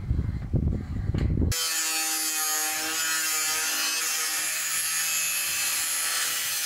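Angle grinder cutting through corrugated steel sheet: a loud, steady, high whine with a hissing edge that starts abruptly about a second and a half in and holds to the end. Before it there is low rumbling noise.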